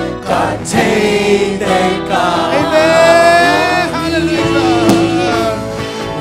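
Live worship band playing a praise song, with a male lead singer and backup singers singing in Zomi over keyboard, bass guitar, electric guitar and drums, holding long notes on some lines.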